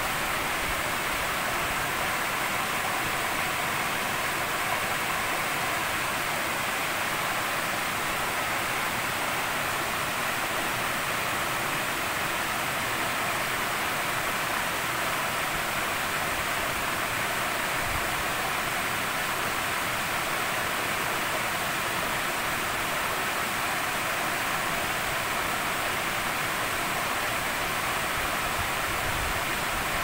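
Water pouring over a wide, low step of rock cascades into a pool: a steady, unbroken rush.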